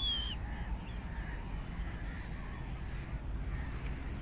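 Crows cawing in the distance over a steady low rumble of wind on the microphone. A long, steady high whistle ends with a short falling slide just after the start.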